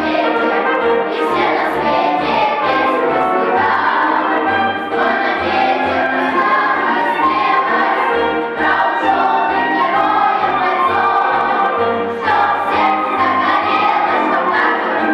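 Children's school choir singing a song in unison, over an instrumental accompaniment with a bass line stepping from note to note.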